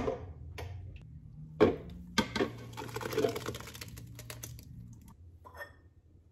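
A metal strainer of grape mash being handled and tipped into a bowl, making a sharp knock at the start and another knock a little over a second and a half in. Then come about two and a half seconds of quick tapping and scraping clatter, which fades out near the end.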